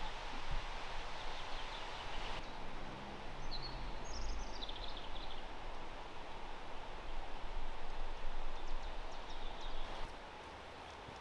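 Steady rushing of a river heard through the forest, with a bird giving a few short, high, falling chirps about four seconds in.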